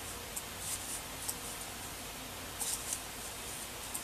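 Faint rustling and scratching of yarn drawn over a crochet hook as single crochet stitches are worked, a few soft strokes at irregular intervals over a low steady hiss.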